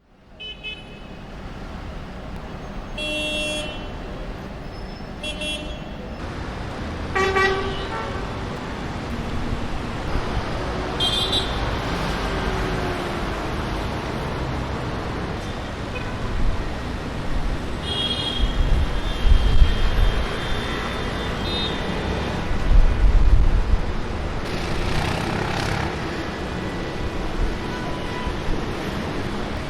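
Car horns honking again and again in stuck traffic over a steady rumble of engines and road noise. There are about half a dozen honks, mostly short toots and one held for a few seconds, and the deep engine rumble swells twice in the middle.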